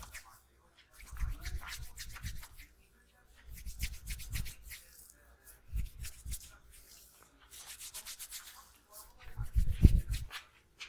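Hands rubbing and kneading skin and hair in massage strokes, coming in about five bouts of a second or so each, with the loudest stroke near the end.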